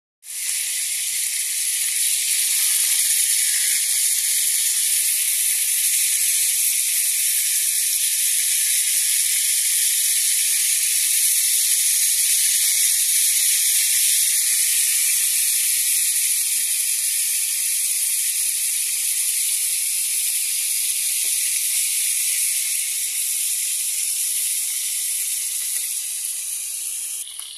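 Pieces of meat frying in hot oil in a small metal wok, a loud, steady sizzle that eases slightly near the end.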